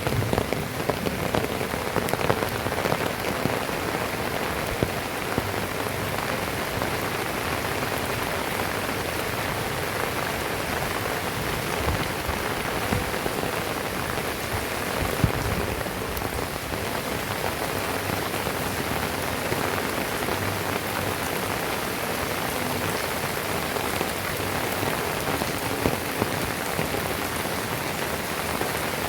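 Heavy rain pouring steadily, a dense even hiss of drops striking surfaces, with scattered sharper drip taps.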